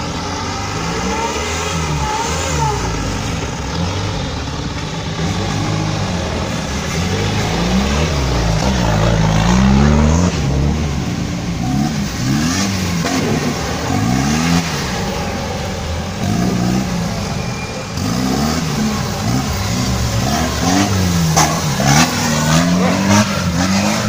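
Off-road buggy engine revved up and down again and again as it crawls a steep dirt section, its pitch repeatedly rising and falling in short surges, with a few sharp knocks near the end.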